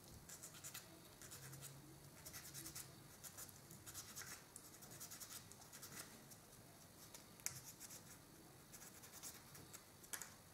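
Faint, irregular scratching and scraping: burrs and flash being cleaned by hand off a small plastic scale-model part, an exhaust piece of an Fw 190 kit.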